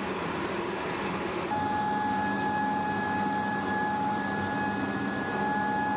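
Jet aircraft engines running, a steady roar. About a second and a half in, the sound changes abruptly to a roar with a steady high whine over it.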